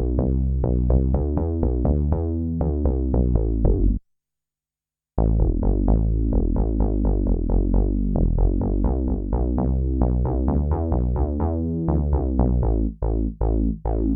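Kurzweil K2000 synthesizer playing a factory program dry, with no effects: a fast stream of short, quickly decaying pitched notes. It drops out to silence for about a second roughly four seconds in, then resumes, with the notes growing sparser and more separate near the end.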